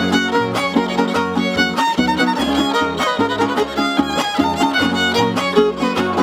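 Background music: a fiddle tune over a bass line that steps along in a steady rhythm.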